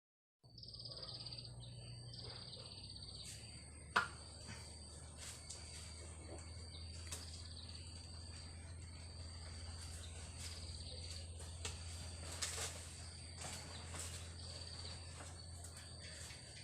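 Outdoor ambience of insects, crickets or cicadas, trilling steadily at a high pitch, with bird chirps and a low steady hum underneath. It starts after a brief moment of silence, and there is a sharp click about 4 s in.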